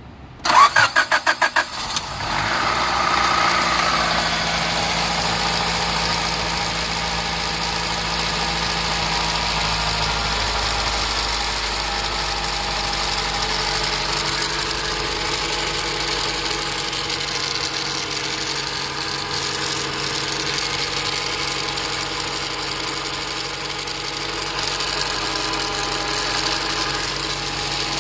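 Car engine cranked over by the starter for about a second, catching about two seconds in and settling into a steady idle.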